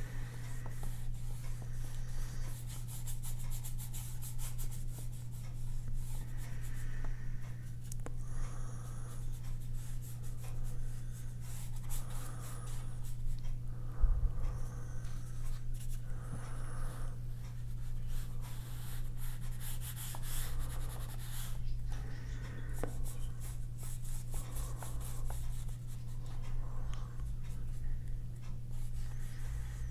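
A paintbrush scrubbing and swishing acrylic gouache onto sketchbook paper in repeated short strokes, over a steady low hum, with one soft knock about halfway through.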